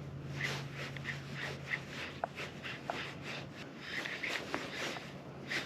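Faint soft ticks and rustles, a few each second, from a spinning reel being wound in to retrieve a swimbait.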